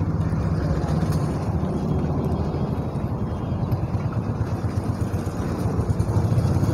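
Steady low engine rumble of a motor vehicle running close by, holding an even level throughout.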